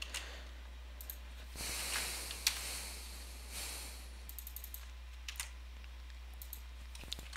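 Scattered computer keyboard keystrokes and clicks, with a single sharper click about two and a half seconds in and a quick run of light taps a little past the middle, over a steady low hum.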